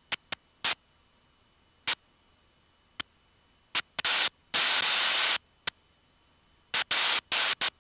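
Short bursts of hiss over the aircraft's headset intercom, switching on and off abruptly as the microphone squelch opens on breath and cockpit noise, with dead silence between. The longest bursts come about four to five seconds in and again near the end.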